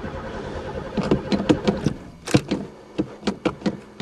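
Old Pontiac's starter cranking the engine, which does not catch; the cranking stops about a second in. A string of sharp clicks and knocks follows, the loudest a little past two seconds in.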